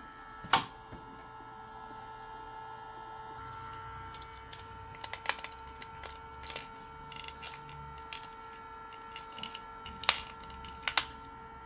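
Optician's frame heater running with a steady hum, while plastic safety frames and lenses are handled and snapped together, giving sharp clicks: the loudest about half a second in, others about five seconds in and twice near the end.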